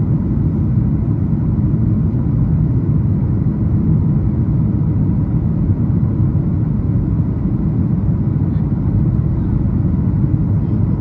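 Steady low rumble of cabin noise inside a Boeing 737 MAX 8 in flight, from its CFM LEAP-1B engines and the air rushing past the fuselage.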